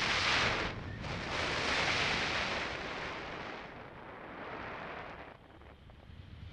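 Rushing airflow buffeting the microphone of a pole-mounted camera on a tandem paraglider in flight. The wind noise surges loudly twice in the first three seconds, then eases off.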